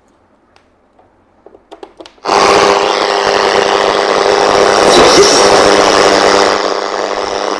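Vintage Aiwa TPR-450 radio-cassette player switching on about two seconds in, after a few faint clicks of handling: loud radio static hiss with a steady hum from its speaker while it is tuned between stations.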